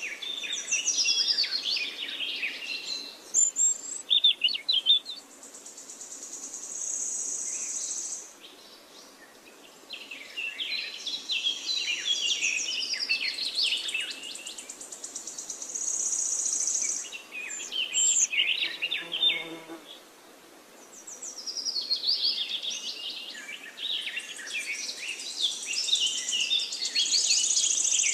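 Songbirds chirping and twittering in bursts a few seconds long, with a high, steady buzz between and beneath them.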